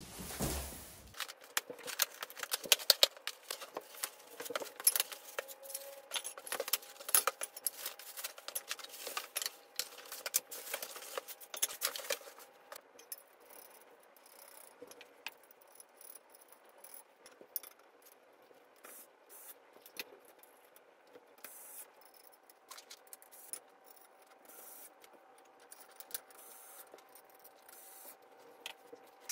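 Clinking and rattling of metal desk-frame parts and hardware being handled and fitted together: dense sharp clicks and knocks for the first twelve seconds or so, then sparser, quieter taps.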